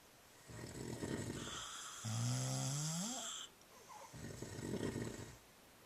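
Grandmother and grandfather snoring together: a rattling snore, then a pitched snore that rises in pitch near its end, then another rattling snore.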